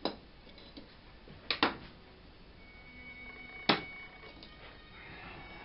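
A few sharp taps and clicks from painting tools knocking on the worktable: one right at the start, a quick double tap about a second and a half in, and the loudest single tap around three and a half seconds in, over low room noise.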